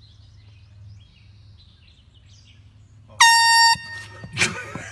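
An air horn blasts once, loud and short, about three seconds in, with a fainter tail after. About a second later comes a sudden loud burst of noise.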